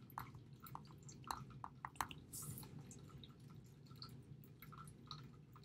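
Faint, irregular clicks and light scratches of a stylus tapping and sliding on a tablet screen as a word is handwritten.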